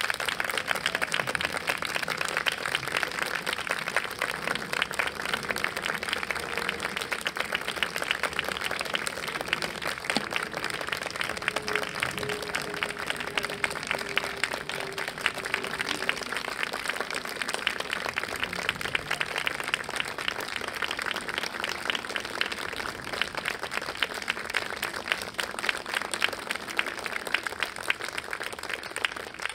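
A small audience applauding steadily, many hands clapping without a break.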